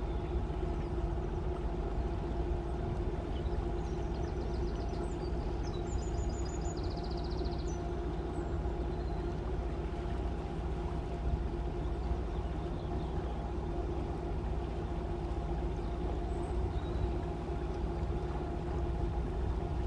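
Boat engine running steadily, heard from aboard as a constant low drone with a steady hum, never rising or falling. A few quick, high-pitched trills come in about four to seven seconds in.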